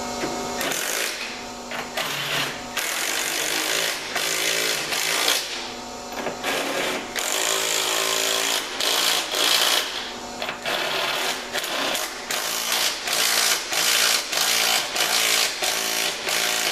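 Power impact wrench running bolts in, in a string of short bursts of about half a second to a second each, with brief pauses between them.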